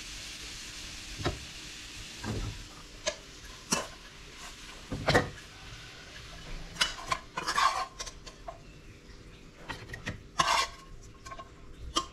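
A metal cooking utensil clinking and scraping against a pan in irregular strokes as fried meat is stirred or dished up, with a light sizzle fading out in the first couple of seconds.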